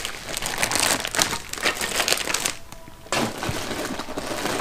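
Packaging crinkling and rustling as the unboxed parts are handled and packed away, with a short lull a little past the middle.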